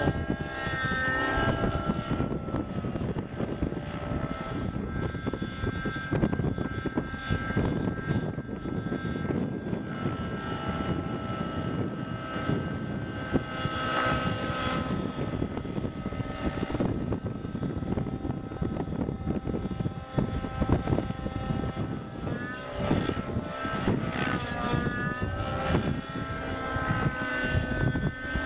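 RC helicopter running in flight: a high whine from its motor and rotors that rises and falls in pitch as it manoeuvres, over a steady low rumble of wind.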